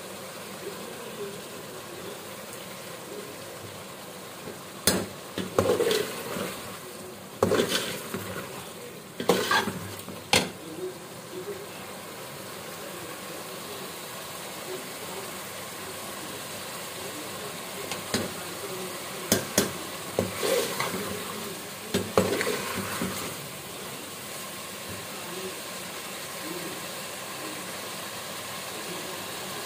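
Chicken masala sizzling in oil in a metal pot while a steel ladle stirs it, scraping and knocking against the pot in bursts between about 5 and 11 seconds in and again from about 18 to 23 seconds. The masala is at the frying-down (bhuna) stage, with the oil risen to the top.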